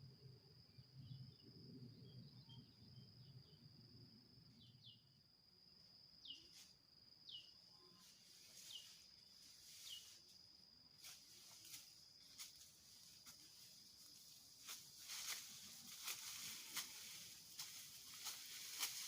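Faint outdoor ambience dominated by a steady high-pitched insect drone. About six short falling chirps sound in the middle, and scattered clicks and rustles grow denser toward the end.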